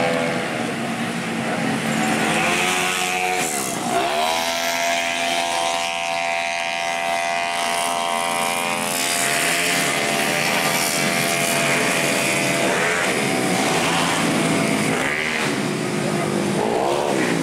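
Racing automatic scooters' engines running at high revs as they pass one after another, the pitch dipping sharply and climbing back about four seconds in and again twice near the end.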